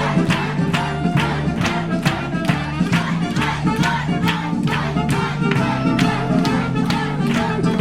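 Upbeat music with a quick, steady beat, about three beats a second, over held pitched notes.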